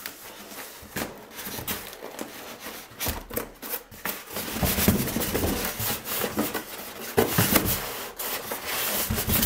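Styrofoam packing insert rubbing and scraping against the inside of a cardboard box as it is worked loose and lifted, with irregular scrapes and knocks. It grows louder from about three seconds in.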